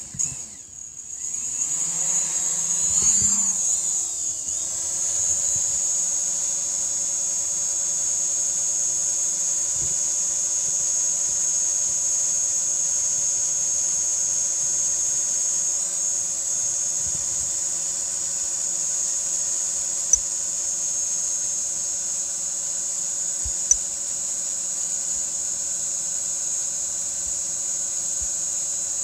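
DJI Mavic Pro quadcopter's motors spinning up for takeoff, a whine rising in pitch over the first few seconds, then a steady, high-pitched propeller buzz as the drone hovers. Two short sharp clicks in the second half.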